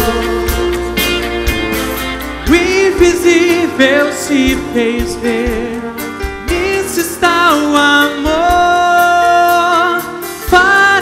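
A choir and band performing a song live: sustained chords with drum beats, then a singing voice with wide vibrato coming in about two and a half seconds in.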